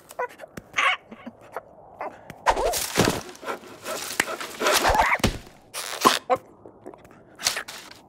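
Cartoon slapstick sound effects: a scatter of sharp knocks and thuds mixed with short, wavering animal-like squeals and chatter from the characters.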